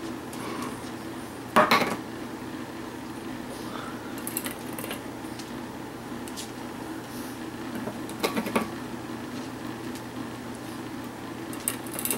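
Stainless steel dog food bowl clanking in a dog's mouth as she carries it about, with one loud clank about a second and a half in and smaller clanks around four, eight and twelve seconds in.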